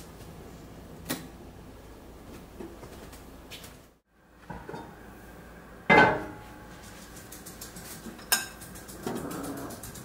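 Kitchen cookware clattering: a heavy pot and its lid knocking. There is a soft knock about a second in, then a loud clank with a short metallic ring about six seconds in, and a sharper clink with a ring just after eight seconds.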